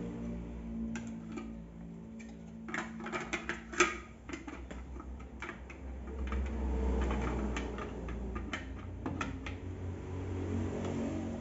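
Irregular clicks and light knocks of parts being handled and fitted together during assembly, with the sharpest knock just under four seconds in.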